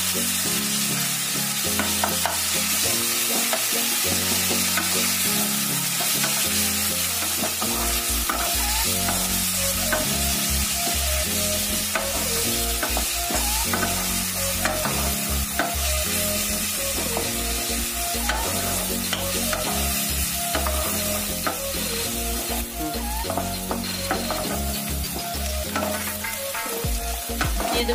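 Sliced onions and ginger-garlic paste sizzling in hot oil in a nonstick kadhai, stirred steadily with a spatula that scrapes and taps the pan. Underneath, low sustained notes change in steps, with a deeper bass line coming in about eight seconds in.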